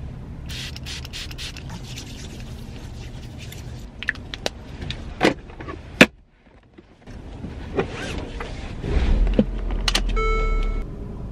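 Car-interior handling sounds: keys jangling and sharp clicks over a steady low hum, then after a short gap a low rumble rises and a short electronic car chime sounds as the seatbelt is pulled across.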